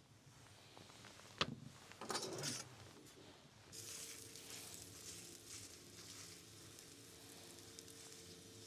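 Skewered ribs beginning to sizzle as they fry, the hiss starting a little under four seconds in and holding steady. Before it, a sharp knock and a brief clatter.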